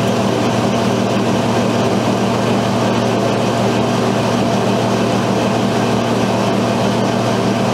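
Softy (soft-serve) ice cream machine running while ice cream is dispensed into a cup: a loud, even mechanical hum with several steady low tones.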